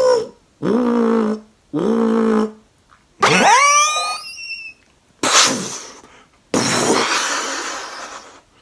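A man's mouth-made Predator creature impression: short pitched growling calls that dip in pitch, a rising shriek about three seconds in, then two breathy hisses that fade, the second one long.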